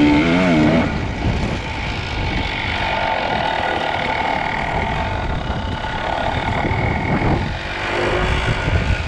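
Kawasaki KDX220 dirt bike's two-stroke single-cylinder engine revving briefly at the start, then running more steadily through the rest.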